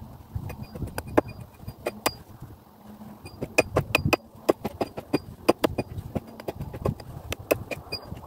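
Hatchet blows on wood at a chopping block: a run of sharp, irregular knocks, several a second, some louder than others.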